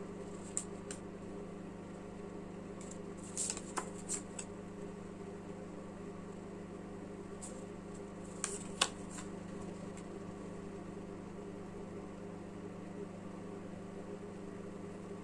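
Steady low hum of room noise, with a few soft clicks and rustles from tarot cards being handled: a couple about three and a half to four seconds in, and a sharper pair near nine seconds.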